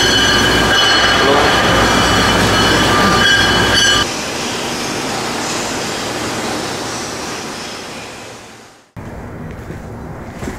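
Workshop machinery running loudly with a steady high metallic squeal over a low hum. About four seconds in, it cuts to a quieter hiss that fades away, and a quieter background follows.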